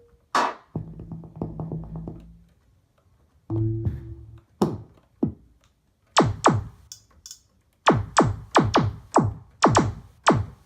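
Alesis Micron synthesizer played through speakers. A falling zap and a buzzy low drone come first, then a string of electronic drum-like hits, each diving steeply from a high click to a deep thump. The hits come faster toward the end, about three or four a second.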